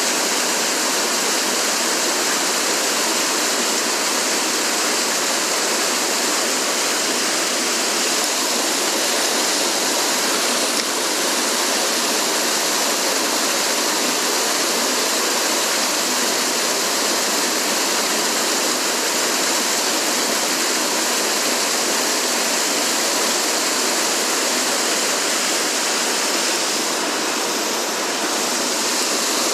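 Mountain stream rushing over rocks, a steady unbroken roar of flowing water.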